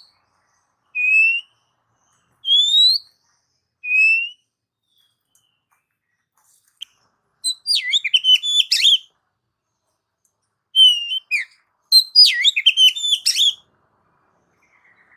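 Oriental magpie-robin (kacer) singing. It gives clear whistled notes about every second and a half, alternating a flat note with an upslurred one, then two quick bursts of rapid, varied song phrases.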